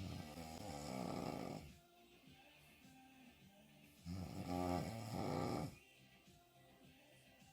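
A woman snoring hard on her back with her mouth wide open: two loud snores, each nearly two seconds long, about four seconds apart, with quieter stretches between.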